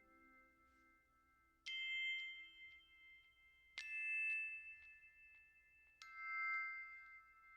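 Background music: three struck bell-like notes about two seconds apart, each ringing on and fading slowly.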